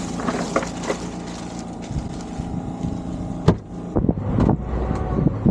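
An engine running steadily with a low hum, with a sharp knock about three and a half seconds in and a few lighter clicks after it.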